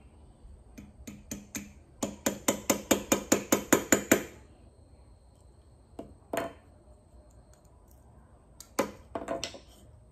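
Wooden mallet tapping a copper hinge loop, folded around a drill bit, against a steel bar to straighten a crooked fold. A few light taps come first, then a quick run of about a dozen taps, about six a second, and a few more scattered knocks near the end.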